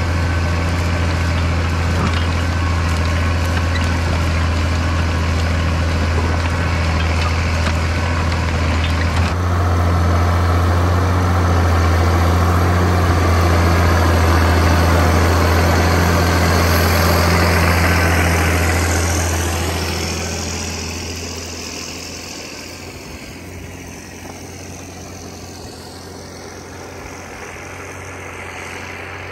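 International Harvester 5088 tractor's diesel engine running steadily under load while pulling a five-bottom moldboard plow, a constant low drone. About two-thirds of the way through the drone fades and the sound becomes much quieter.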